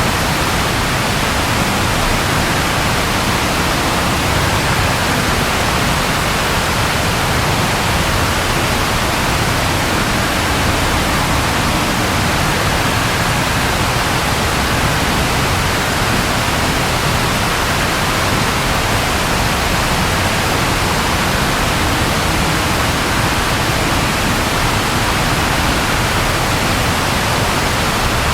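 Steady rainfall: an even, unbroken hiss with no thunder claps.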